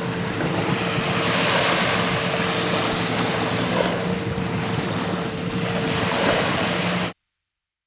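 Ocean surf washing in swells every couple of seconds over a faint steady hum, cutting off abruptly about seven seconds in.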